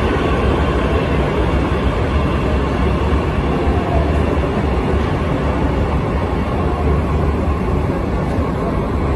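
Bombardier metro train moving through the station: a loud, steady rumble of wheels and traction motors with a low hum, holding an even level with no distinct knocks or pauses.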